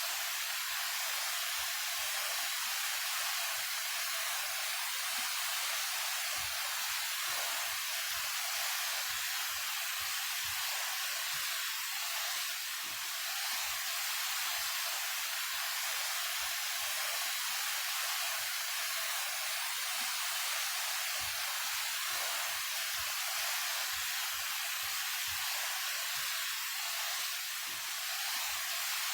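A 28-metre mountain waterfall pouring steadily: a constant, even rush of falling water, bright and hissy with little low rumble.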